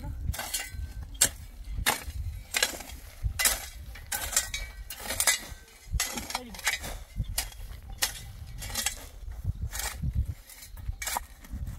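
A hand tool striking and scraping over and over at an uneven pace of one to two strokes a second, over a low wind rumble on the microphone.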